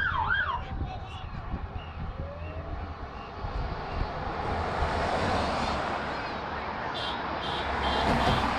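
A short siren whoop at the start, then vehicles driving past close by on the road: tyre and engine noise swells as a police 4x4 approaches and peaks as a car passes near the end.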